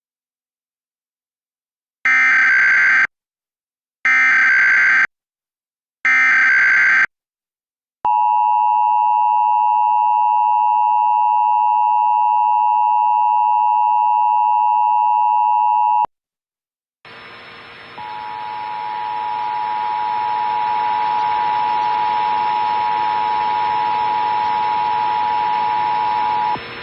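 Emergency Alert System test header: three one-second bursts of screeching digital data tones (the SAME header), then the eight-second two-tone attention signal, a steady 853 and 960 Hz chord. After a one-second pause a hiss rises with a steady two-tone sound inside it, cutting out near the end.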